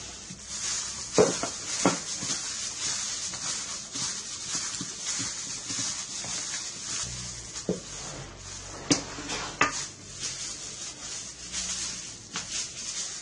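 Food preparation: a utensil or dish knocking and clinking against a bowl a handful of times, over a steady hiss.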